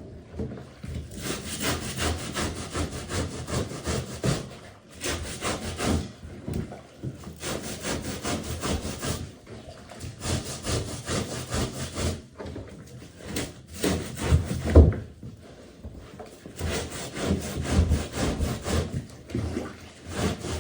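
Stiff brush scrubbing a bath mat, in bursts of rapid back-and-forth strokes broken by short pauses.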